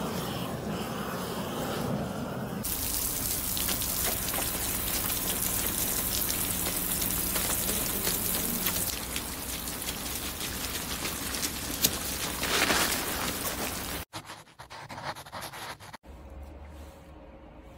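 Steady gush of water, an even hiss that starts about two and a half seconds in and cuts off suddenly near the end. The water is being run to melt water that has frozen on the ground.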